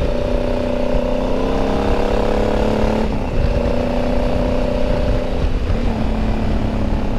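Motorcycle engine running at steady speed under way, over a low wind rumble. The engine note breaks briefly about three seconds in and shifts slightly near six seconds.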